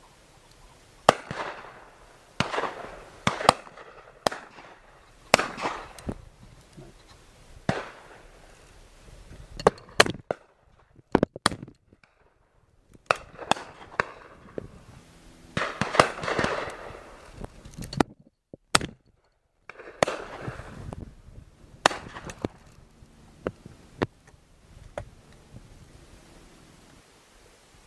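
Shotguns firing repeatedly from a line of guns at driven game birds, with loud nearby shots and fainter distant ones at uneven intervals. Some shots are followed by a short echo.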